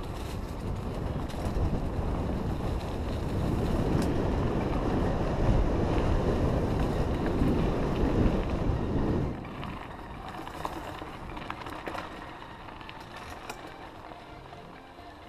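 Wind rushing over a helmet camera's microphone while a mountain bike rides over a dirt forest trail, with scattered knocks and rattles from the bike. The rush drops to a quieter level about nine seconds in.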